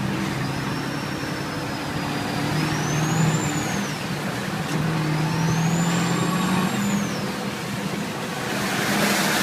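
Semi truck's engine running steadily, with a high whistle that rises and falls twice. A loud hiss comes in near the end.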